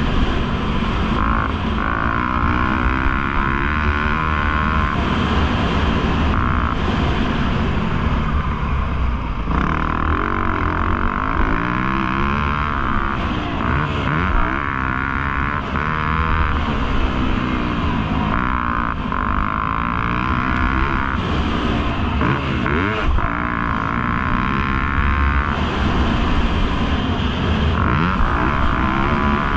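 Motocross dirt bike engine being ridden hard around a track, its pitch climbing and dropping over and over with throttle and gear changes.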